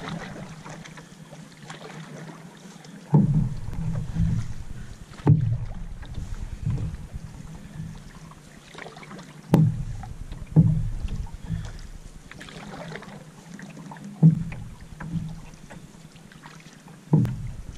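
Canoe being paddled on calm water: light swishing and dripping from the paddle, with a dull thump carried through the hull every one to four seconds, six in all.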